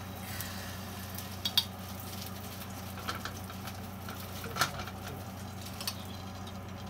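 Dough sizzling lightly in a hot skillet while it is folded and pressed by hand, with a few sharp clinks of a metal spoon against a glass jar of apple jam, over a steady low hum.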